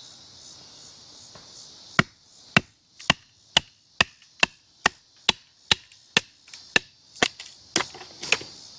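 Ozark Trail 11-inch fixed-blade knife being batoned through a piece of dry firewood: a steady series of sharp wooden knocks, about two a second, beginning about two seconds in, as the blade's spine is struck and driven down through the wood.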